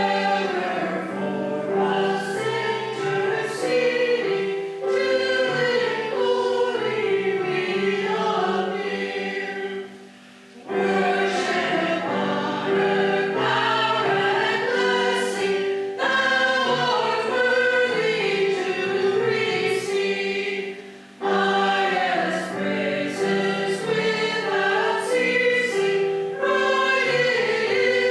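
Church choir singing an anthem in parts, with a short break between phrases about ten seconds in and a brief breath about twenty-one seconds in.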